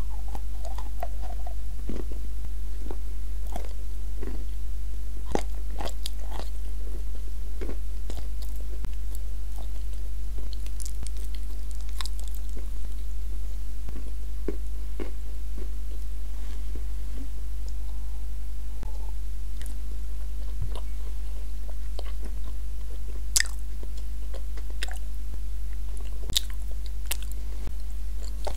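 Close-miked chewing of a thick edible-clay paste, with soft crunches and wet mouth clicks scattered through, the sharpest crackles near the end. A steady low electrical hum sits underneath throughout.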